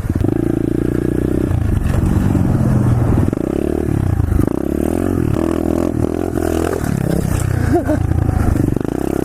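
Pit bike engine revving up and down repeatedly, its pitch rising and falling, as the bike churns in soft, deep mud.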